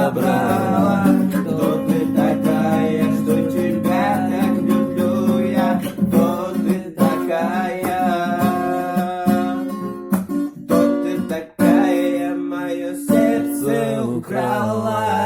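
A song played on acoustic guitar, with a voice singing the melody.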